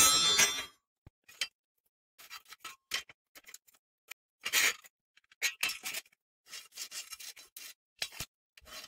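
A short metallic clank with a brief ring at the start, then scattered small clicks, taps and scrapes as a ruler is laid on steel channel and a pencil marks it.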